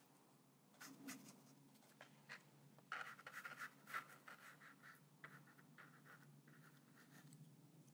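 Faint scratchy strokes of a wet paintbrush working acrylic paint across a rough, textured painting surface: a run of short strokes, busiest through the middle, then fainter.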